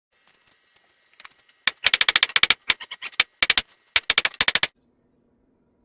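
Quick runs of hammer blows on steel at the anvil, each strike sharp and ringing. The blows come in fast clusters of several strikes each, from about two seconds in until near the end.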